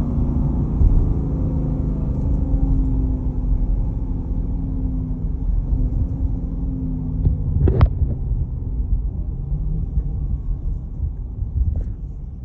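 Dodge Durango R/T's 5.7 L Hemi V8 running through a muffler delete with the stock resonators and tips kept, a steady deep exhaust rumble while driving. The engine note sags a little and grows quieter toward the end, with one brief sharp squeak about eight seconds in.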